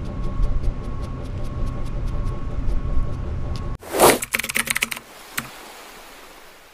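A steady low rumble with faint regular ticks, about four or five a second, cut off about four seconds in by a whoosh and a quick run of clicks from an animated end-card sound effect, then a quieter steady hum.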